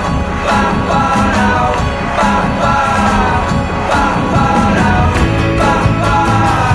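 Indie rock song: a sung vocal line over a full band with a steady drum beat.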